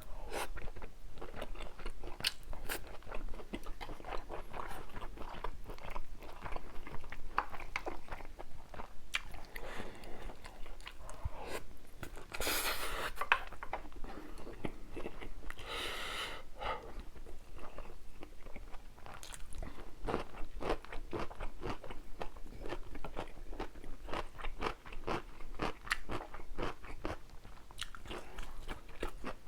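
Close-miked eating sounds: a person biting and chewing with frequent irregular crunches, and two longer noisy stretches about twelve and sixteen seconds in.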